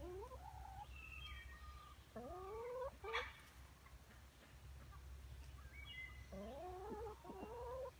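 An animal calling three times, each call rising in pitch: at the start, about two seconds in, and a longer run about six seconds in. A sharp click about three seconds in is the loudest sound.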